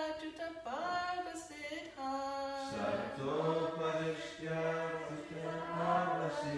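Call-and-response chanting of a Sanskrit verse: a woman's single voice chants a line, and about three seconds in a group with men's lower voices joins, chanting together.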